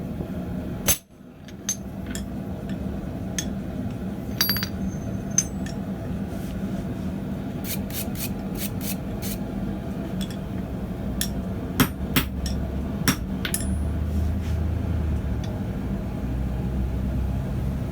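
Hammer blows on steel at the anvil, driving a top die through its guide tool. About a dozen sharp, irregularly spaced strikes, a few ringing briefly, over a steady low hum.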